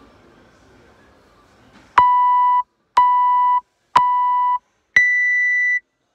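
Electronic workout timer counting down: three short beeps one second apart, then a longer, higher beep that signals the start of the workout.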